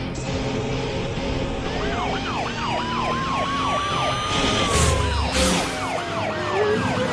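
Cartoon police siren on futuristic hover-bikes, wailing in quick rising-and-falling sweeps over a slower tone that climbs and then sinks. Two whooshes come about five seconds in as the bikes speed off, with background music under it all.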